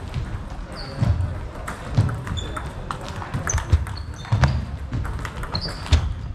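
Table tennis balls clicking off bats and tables in quick, irregular succession across a sports hall, some with a short high ping, mixed with low thuds of players' feet on the floor.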